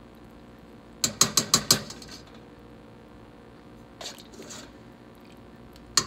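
A metal utensil clinking and scraping against a speckled blue enamel pot while stirring soup: a quick run of about six clinks about a second in, a softer scrape around four seconds in, and more clinks near the end.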